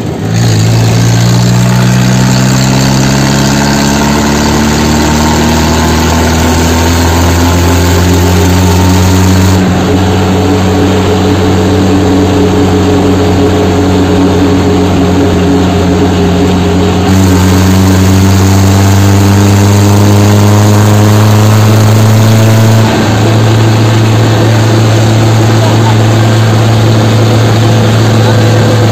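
Tractor engine running under way, its pitch slowly climbing as it gathers speed, with abrupt jumps in the sound about 10, 17 and 23 seconds in where clips are joined.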